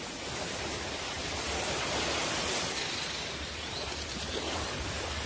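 Steady rushing of surf washing on a shore, swelling a little about two seconds in.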